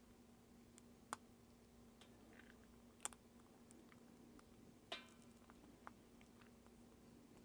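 Faint, sparse clicks of small watch parts being handled as a strap adapter is worked into a G-Shock's case lugs: three sharper clicks about two seconds apart and a few softer ones, over a low steady hum.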